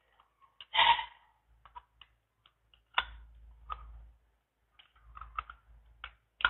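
A small screwdriver working the screw terminals of a plastic digital timer switch to free its wires: scattered light clicks and taps, with a brief louder burst about a second in.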